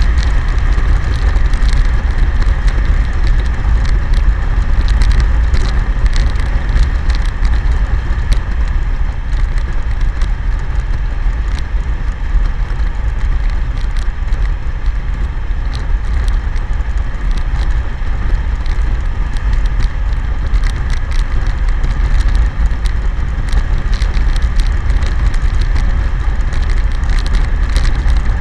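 Wind buffeting a helmet camera's microphone on a BMW K1100LT at steady highway speed, a loud, even low rumble with the motorcycle's engine and tyre noise beneath it.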